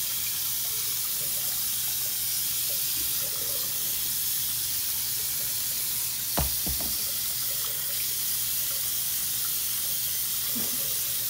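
Bathroom sink faucet running steadily, its stream splashing into the basin and over a small wet puppy. A short knock sounds about six seconds in.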